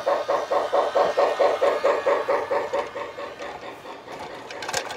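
Lionel Thomas the Tank Engine toy train running on its track with a fast, even chugging rhythm of about seven beats a second that fades after a few seconds, with a couple of sharp clicks near the end.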